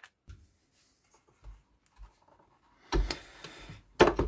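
Handling noise from a loudspeaker being taken apart: a few faint clicks, then a clatter about three seconds in and a sharp knock about a second later as the unscrewed tweeter mounting plate is worked loose from the cabinet.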